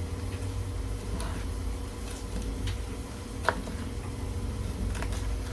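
A few scattered light clicks and knocks of kitchen items being handled, the sharpest about three and a half seconds in, over a steady low hum.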